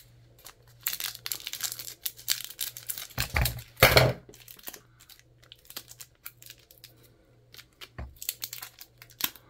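Foil wrapper of a 1995 Fleer Ultra baseball card pack being cut with scissors and torn open, crinkling and tearing in irregular bursts, with two heavier knocks about three and four seconds in. The wrapper does not cut cleanly, so it is partly torn by hand. Quieter crinkling near the end.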